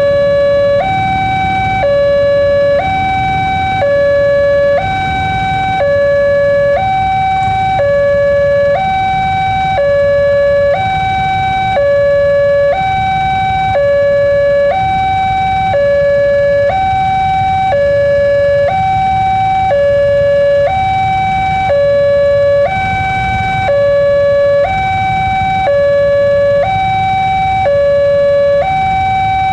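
Railway level-crossing warning alarm: an electronic two-tone signal alternating between a lower and a higher note, about a second each, sounding while a train approaches. A low rumble of waiting traffic lies underneath.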